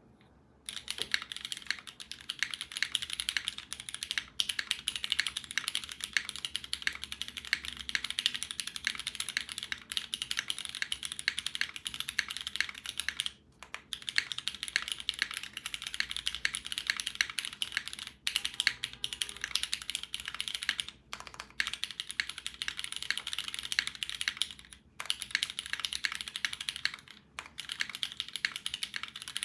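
Fast, continuous typing on a custom mechanical keyboard with Cherry MX Red linear switches lubed with Krytox 205g0, in an aluminium plate, with GMK keycaps. It gives a crisp, dense stream of keystrokes that starts under a second in, with a few short pauses.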